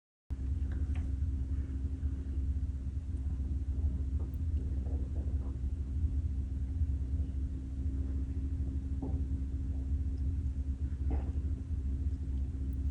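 Steady low rumble with a constant hum, and a few faint, brief sounds over it.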